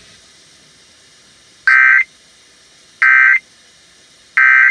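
Emergency Alert System end-of-message signal: three short, identical bursts of screechy digital data tones about 1.3 s apart, marking the end of the alert broadcast.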